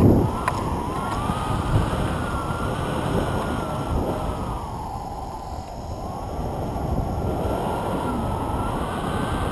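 Wind rushing and buffeting over an action camera's microphone from the airflow of a paraglider in flight, a steady low rush that swells briefly at the start.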